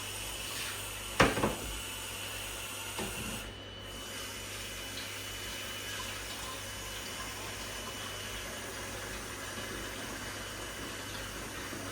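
Water running steadily, with a sharp knock about a second in and a lighter one about three seconds in.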